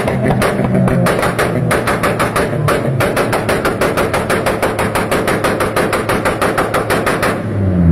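Car exhaust backfiring in a rapid, even string of loud pops, about ten a second, that stops about seven seconds in. The engine then revs up near the end.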